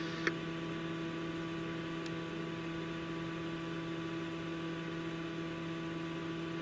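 Steady electrical hum and hiss on a dispatch radio feed between transmissions, with a short click about a third of a second in.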